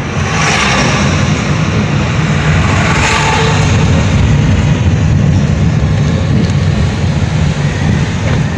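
Car driving on a mountain road, heard from inside the cabin: a steady low engine and road rumble with tyre hiss, the hiss swelling briefly about half a second in and again around three seconds.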